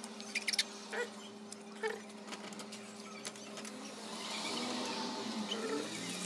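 A few light clinks of metal wastegate parts and tools handled on a workbench over a steady low hum, then a louder rushing noise building from about four seconds in.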